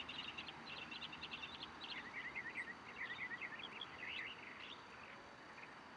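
Small songbirds chirping, quick runs of high twittering notes that thin out near the end, over a steady hiss of outdoor background noise.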